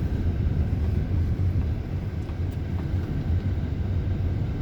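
A vehicle running steadily: a constant low engine hum with road and wind noise.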